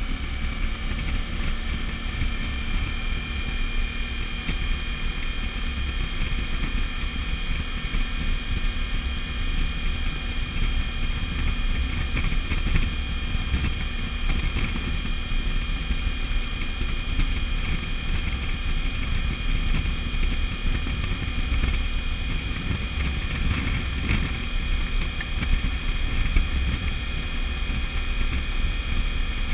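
Suzuki V-Strom DL1000's V-twin engine running steadily at cruising speed, with wind rumbling heavily on the bike-mounted camera's microphone.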